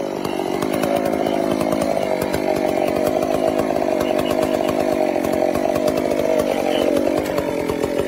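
Two-stroke gasoline chainsaw running continuously, its engine speed shifting a couple of times.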